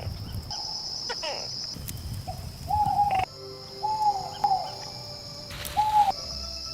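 Night nature ambience: a steady high insect drone, with a short rise-and-fall animal call repeated every second or so. A brief rustling burst comes near the end.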